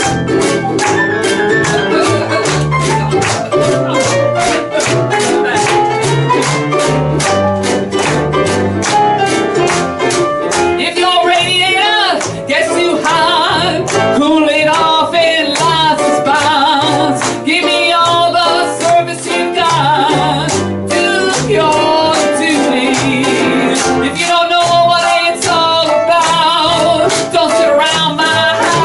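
A woman singing a song into a microphone over live instrumental accompaniment with a steady beat.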